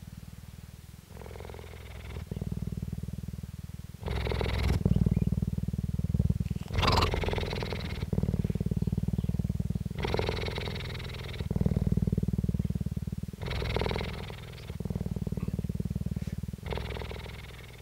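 Cheetah purring close to the microphone: a continuous rapid low pulsing that carries on through both in and out breaths, switching every second or two between a quieter phase and a louder, rougher phase.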